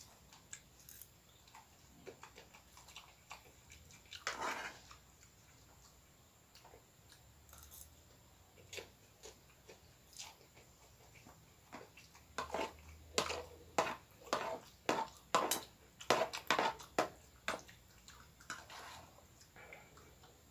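Eating sounds from someone eating fried noodles close to the microphone: chewing and mouth noises with scattered clicks, and past the middle a quick run of loud chewing sounds, two or three a second, for about five seconds.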